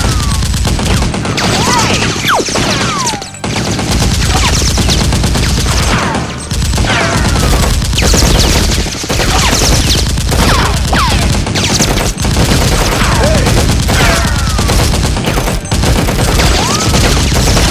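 Rapid automatic gunfire sound effects, shots packed close together with brief breaks every few seconds, and short falling whistles scattered through them.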